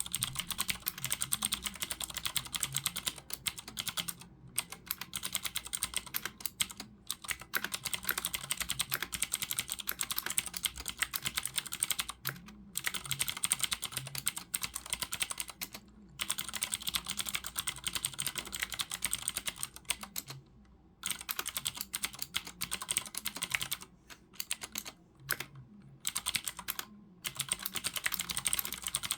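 Fast typing on a Ducky Shine 4 mechanical keyboard with clicky Cherry MX Blue switches: a dense stream of sharp key clicks, broken by several short pauses.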